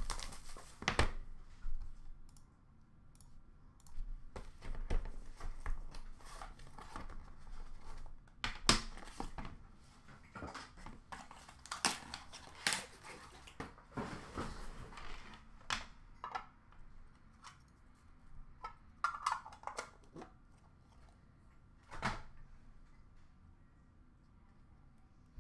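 Hands opening a trading-card box and handling its cardboard and plastic packaging: scattered clicks, taps and short rustles with quiet stretches between.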